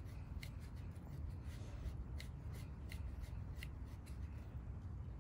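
Hands working bucktail hair and tying thread around a jig head held in a vise: soft rubbing and handling with a few light ticks, over a steady low background rumble.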